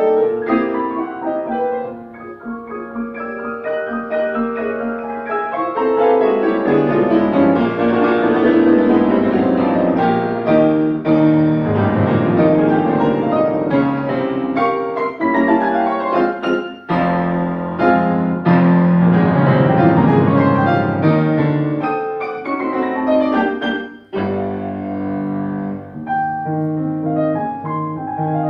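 Steinway grand piano played solo: a fast, dense passage swells loud through the middle, breaks off briefly near the end, then carries on more softly.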